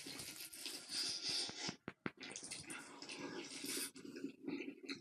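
A person eating noisily: irregular wet chewing, smacking and slurping, with a brief pause about two seconds in.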